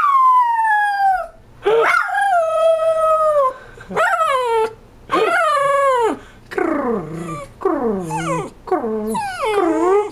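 Dachshund howling: a string of about seven drawn-out howls, each falling in pitch, the later ones shorter and more broken.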